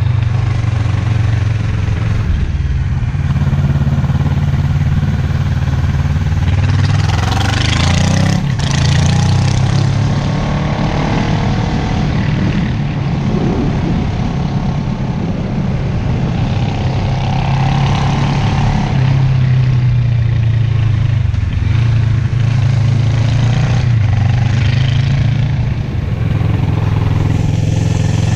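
Motorcycle engine running under way on the road, its note stepping up and down in pitch with throttle and gear changes, with a brief rush of noise about eight seconds in.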